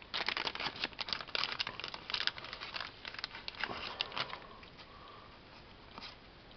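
Clear plastic shrink-wrap being torn and peeled off a small card-deck box: a quick run of crinkling, crackling rustles for about four seconds, then it dies down to light handling of the cards.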